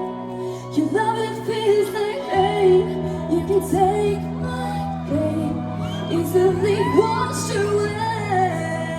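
Live pop song played by a band: a singer's melody over steady held chords, which change about two and a half and about five seconds in.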